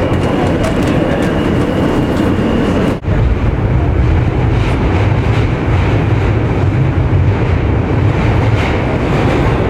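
Subway train running, heard from inside the car: a loud, steady rumble with faint clicks. A thin, steady high whine sits over it for the first three seconds. The sound cuts abruptly about three seconds in, and after that the low rumble is heavier.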